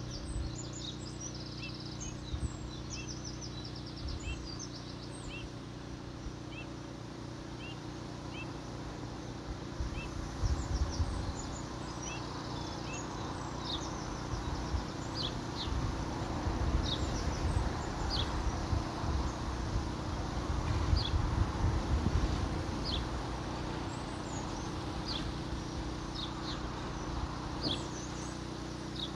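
Small birds chirping, short high calls repeated all through, over a steady low hum. Wind buffets the microphone in gusts about ten seconds in and again for several seconds past the middle.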